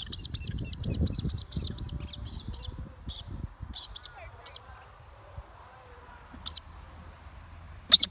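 Galah (rose-breasted cockatoo) calling. A quick run of high, harsh repeated calls comes first, then single calls a second or more apart, with the loudest one near the end.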